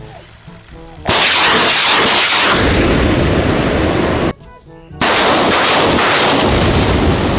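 Truck-mounted multiple rocket launcher firing a salvo: a loud rushing roar of rockets leaving the tubes, starting about a second in, breaking off briefly about four seconds in, then a second long burst of launches.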